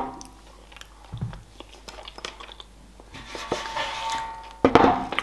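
A person chewing a mouthful of sushi roll close to the microphone: soft wet clicks and smacks, with a held tone for about a second and a half past the middle and a louder noisy burst near the end.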